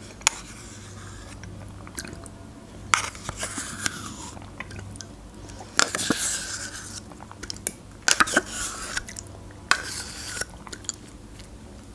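Close-up mouth sounds of eating yogurt off a metal spoon: wet smacking and lip sounds. A few sharp clicks of the spoon against the small plastic yogurt cup are spread through, along with the spoon scraping inside the cup.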